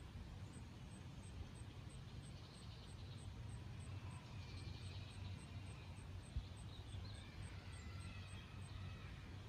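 Faint outdoor ambience: a steady low rumble, with faint high chirps through the middle and end and a single short click about six seconds in.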